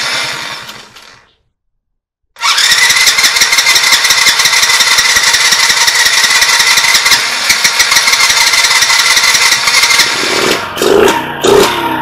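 A small mini-ATV engine, fed only by fuel poured into its carburettor float bowl with no tank fitted, gives a short burst that dies away, then starts and runs steadily with a high whine. Near the end the running turns uneven and pulsing.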